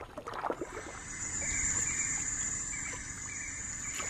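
A little water splashing in the first moment, then rainforest ambience: a steady high-pitched insect drone with faint scattered chirps.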